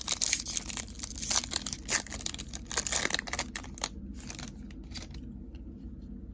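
Trading-card pack wrapper being torn open and crinkled in the hands: dense, irregular crackling for about five seconds that dies down near the end.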